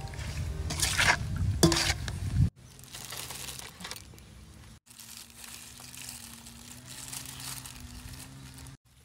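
Wet squishing of beef liver pieces being stirred and handled in a thick chilli marinade in a steel bowl, with plastic glove crinkling. It is loudest for the first two and a half seconds and stops abruptly, followed by quieter handling sounds.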